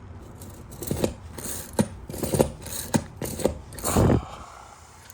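Yankee No. 30A spiral ratchet push screwdriver being pumped to drive a screw: a run of about seven or eight short metallic clicking strokes, the last one the loudest.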